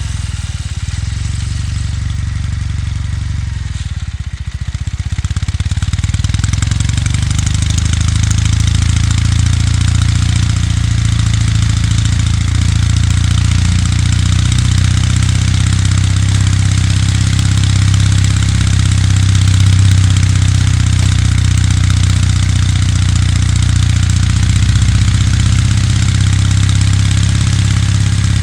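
Kawasaki W800's air-cooled parallel-twin engine running at low, steady revs, easing off briefly about four seconds in and then picking up again.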